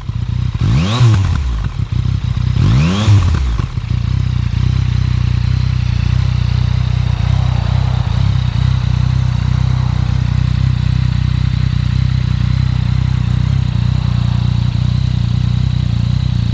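Yamaha XSR900's inline-three engine breathing through an SP Tadao Power Box full exhaust system, blipped twice with quick revs about one and three seconds in, then idling steadily.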